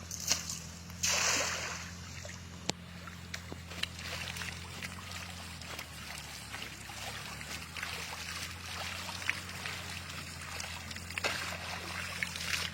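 Water sloshing and splashing, with a louder splash about a second in and small scattered clicks and trickles after it, over a steady low hum.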